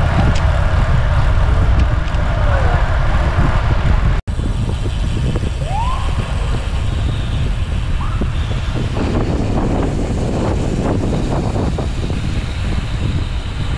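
Road and traffic noise with heavy low wind rumble on the microphone. The sound cuts out for an instant about four seconds in, and a few short rising squeaks come through around the six- and eight-second marks.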